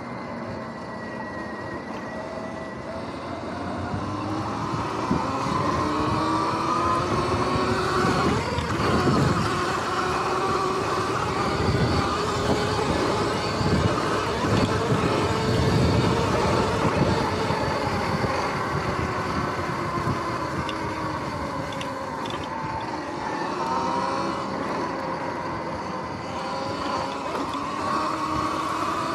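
Sur-Ron X electric dirt bike under way: its motor and drive whine rises in pitch as it speeds up a few seconds in, holds, sags, then climbs again near the end. Underneath is a rush of wind and tyre noise over grass.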